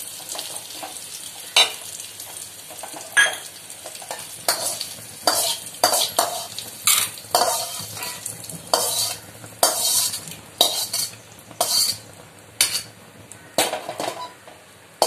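Perforated steel skimmer scraping and knocking against an aluminium kadai, repeated irregularly about one or two times a second, as fried tempering of cashews, chillies and dal is scooped out into a steel bowl.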